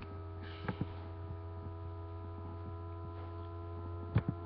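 Steady electrical mains hum with a few short clicks, two close together about a second in and two more near the end.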